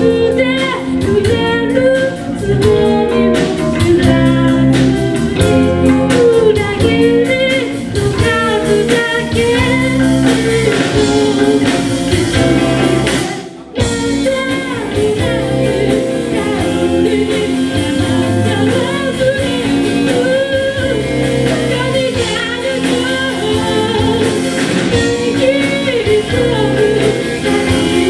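Live rock band playing: a singer over electric guitar and drums. The music drops out for a moment about halfway through, then carries on.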